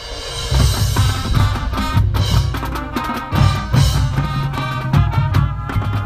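Marching band music: drums with heavy bass-drum hits under horn tones, coming in loud about half a second in.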